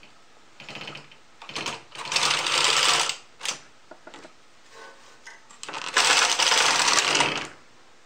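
Brother KH-260 bulky knitting machine carriage pushed across the needle bed, knitting the first row of a weaving cast-on. The carriage clatters in two loud stretches, about two seconds in and near the end, with smaller clicks between.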